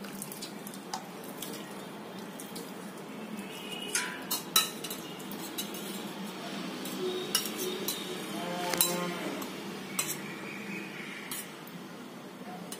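Stainless steel vessels and a spoon clinking and tapping now and then against a steel bowl, over a low steady hum, as cooked pearl millet is mashed in water and curd is spooned in for kambu koozh. One clink a little after the middle rings briefly.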